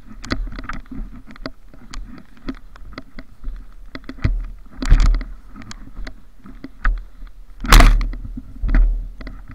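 Crunching and brushing of snow with knocks of handling, as the camera is carried through deep snow and pushed against snow-laden branches. There are several heavy bumps, the strongest near the end.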